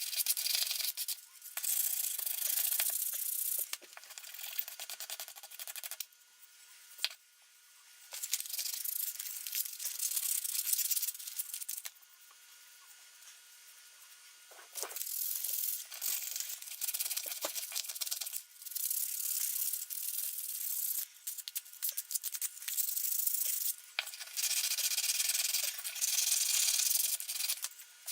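Hand rubbing of an abrasive on the metal of a rusty hand plane, taking off rust. The scratchy strokes come in spells of a few seconds with short pauses between.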